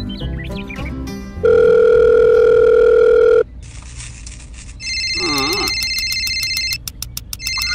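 Background music, then a loud steady beep tone for about two seconds, followed by a telephone ringing in fast trills, paused briefly near the end, with a short squeaky chirp as the ringing starts.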